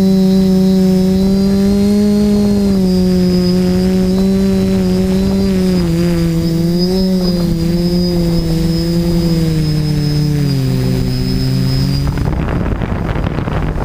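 Electric motors and propellers of an FPV aircraft carrying the camera: a steady buzzing hum with a thin high whine above it, the hum's pitch dropping in steps as the throttle eases. About twelve seconds in, wind rushing over the microphone takes over.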